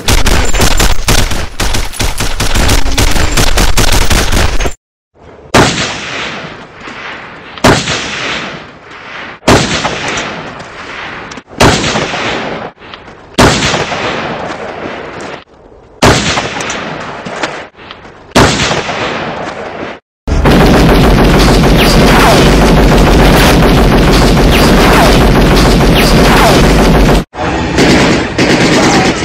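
Gunfire. It opens with a few seconds of rapid automatic fire. Then come about seven short bursts roughly two seconds apart, each trailing off with an echo. Finally there is a long sustained stretch of rapid automatic fire lasting about seven seconds.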